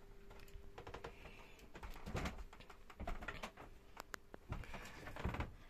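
Quiet footsteps on a boat's cabin floor, soft thuds about once a second, with small clicks and knocks.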